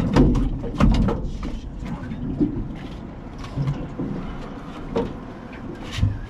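Scattered knocks, thumps and clatter of fishing gear being handled in a small boat, the heaviest thumps near the start, about a second in and just before the end.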